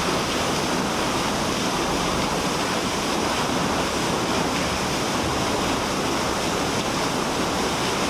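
Waterfall pouring close by: a loud, steady rush of water.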